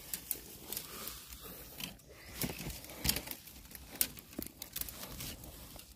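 Irregular crackling, scraping and rustling of soil and leaf litter being dug and pulled away by hand around a bamboo shoot.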